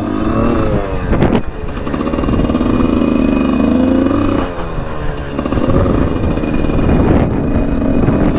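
Husqvarna SMS 125 dirt bike engine revving up and down through a lap of a motocross track, with heavy wind buffeting on the camera microphone. The pitch climbs over the first few seconds, drops about four and a half seconds in, then climbs again.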